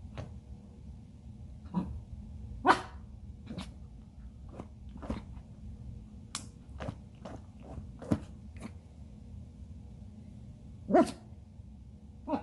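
Young Shih Tzu barking, a string of short single barks with two loud ones about three seconds and eleven seconds in.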